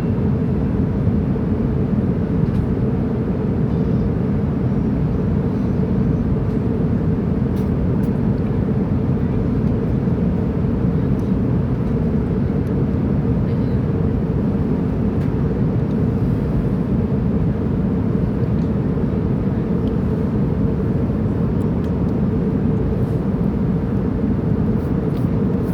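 Airplane in flight, a steady low drone of engine and air noise that does not change, with a few faint ticks.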